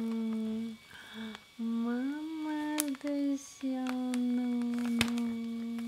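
A steady hum held at one low pitch, breaking off and starting again a few times, with sharp crinkles and clicks from a kraft paper mailer bag being peeled open by hand.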